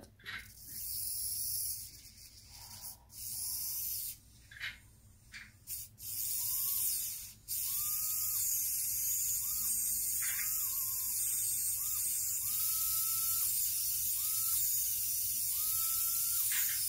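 Micro 1:87-scale RC car's tiny electric motor and new-design gear differential gearbox spinning with the wheels off the ground: a thin, high whir in several short bursts, then running steadily from about seven and a half seconds in. A faint whine under it rises and falls several times.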